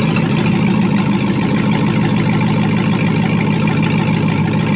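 GM LS V8 engine in a 1955 Chevrolet panel truck, running steadily at low revs while the truck drives under its own power.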